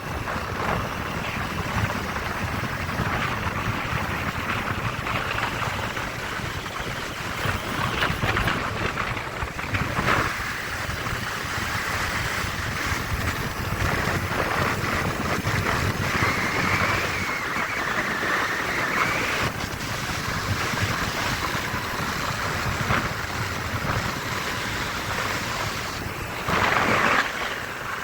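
Motorcycle engine running under way on the road, mixed with heavy wind rushing over the microphone; briefly louder near the end.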